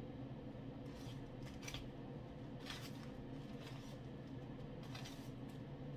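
Several short rustles of dry homemade bread crumbs scraping in a plastic tub as onion rings are pressed and turned in them by hand, over the steady hum of a running air fryer.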